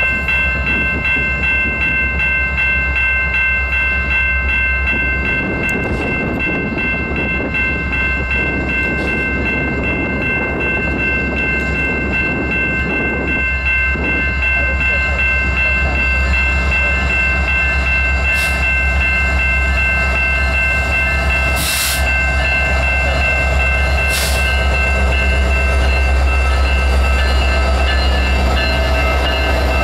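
Canadian Pacific diesel freight locomotives, an SD70ACU leading an AC4400CW, approaching and drawing alongside at the head of an intermodal train, their engines a low rumble that grows louder toward the end. Over it, a steady high ringing warning tone sounds without a break and keeps the same pitch as the locomotives pass.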